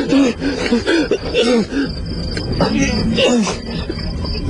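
A man's voice, with coughing and untranscribed vocal sounds, over a steady high-pitched chirping of crickets.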